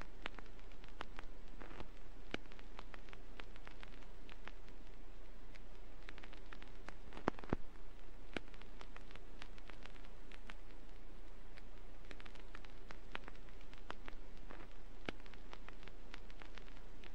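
Vinyl record surface noise from a record player's stylus in the groove: a steady hiss scattered with irregular crackles and pops, a couple of louder pops about seven seconds in, over a steady low hum. No music.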